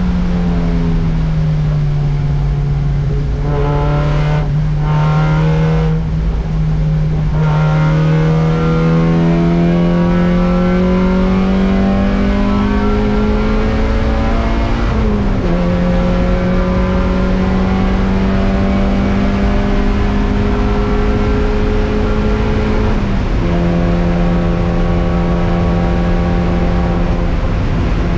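Spec Miata race car's four-cylinder engine heard from inside its stripped cabin, running hard at high revs. Its pitch climbs slowly as it pulls through a gear, then drops sharply at an upshift about halfway through and again near the end.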